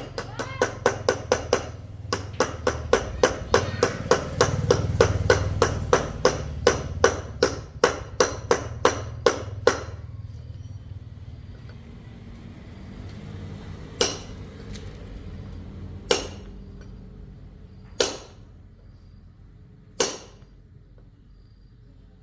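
Hammer blows on metal with a ringing edge, about three a second for roughly ten seconds, then a few single strikes about two seconds apart.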